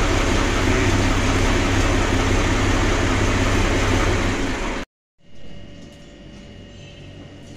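New Holland Ghazi 65 hp tractor's diesel engine running loud and steady as the tractor is driven. It cuts off abruptly about five seconds in, followed by a much quieter steady hum.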